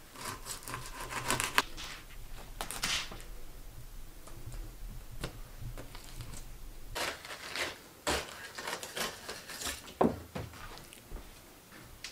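Fillet knife cutting and scraping along a nearly frozen northern pike on a stainless steel table, in short scraping strokes that come in two spells, with a couple of sharp knocks.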